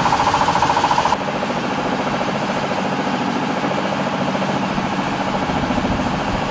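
Boat engine running steadily, under a rapid buzzing rattle that cuts off suddenly about a second in.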